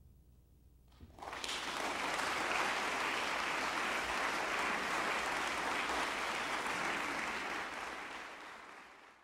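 A moment of near quiet as the last low percussion notes die away, then audience applause starting about a second in, holding steady, and fading near the end.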